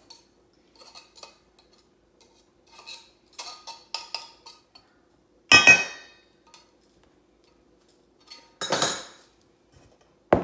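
Metal utensils, a pastry cutter and a fork, clinking and scraping against a stainless steel mixing bowl: light taps and scrapes, then one loud ringing clank a little over halfway through. Near the end comes a brief scraping rush and a sharp knock as the bowl is moved and set down on the counter.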